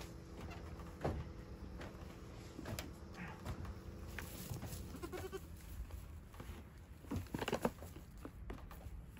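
Goat bleating, with scattered knocks and a cluster of louder knocks near the end as the goats jostle at a hay bucket.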